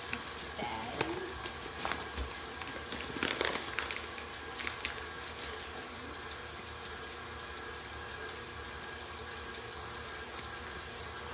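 Steady sizzling of food frying in a pan, with a few light clicks and knocks in the first few seconds.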